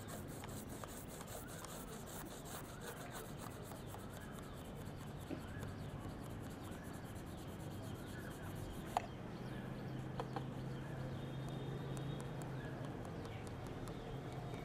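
Faint scratchy rubbing of a crayon being worked back and forth over paper while colouring in, with a single sharp click about nine seconds in.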